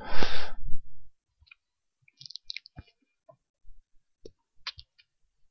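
Computer mouse and keyboard clicks picked up by a desk microphone: a short, louder burst of noise in the first second, then scattered light clicks.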